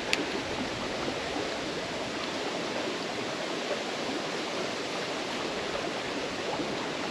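Shallow creek water running over a stony bed, a steady rushing hiss, with one short sharp click just after the start.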